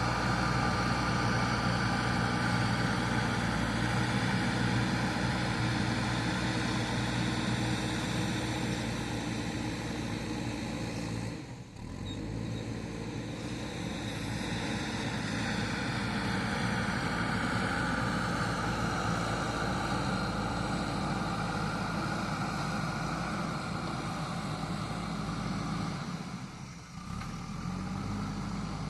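JCB backhoe loader's diesel engine running steadily, its level dipping briefly twice.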